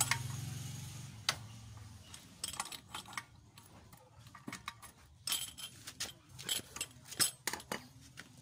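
Irregular metallic clicks and clinks of a wrench and socket working the centre nut of a Kymco scooter's CVT clutch bell as it is tightened. A low hum fades away over the first two seconds.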